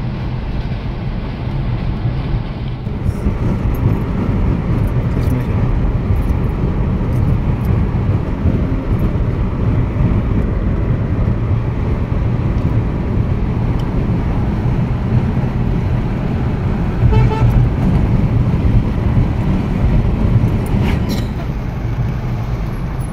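Steady road and engine rumble heard inside a moving car's cabin. A short horn toot sounds about two-thirds of the way through.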